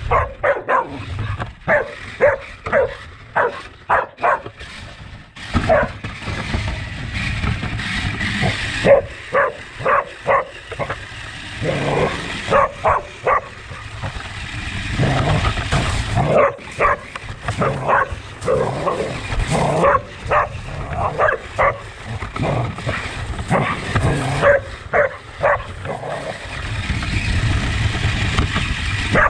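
A dog barking and yipping over and over, several calls a second in quick runs with short pauses between them.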